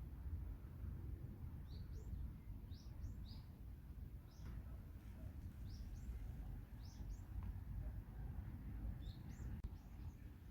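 Small birds chirping, short high notes scattered every second or so, over a steady low rumble.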